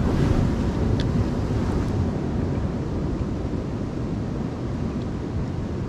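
Wind buffeting the microphone over ocean surf breaking and washing on rocks, a steady low rumbling noise, with a faint click about a second in.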